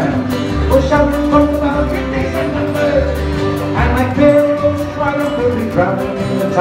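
Live band playing a song with a singer: upright bass, drum kit and guitar, with a steady beat of cymbal strokes and a walking bass line.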